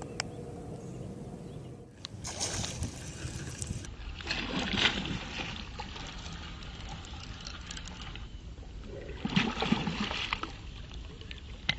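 Water splashing and sloshing in three short bursts over a steady low background.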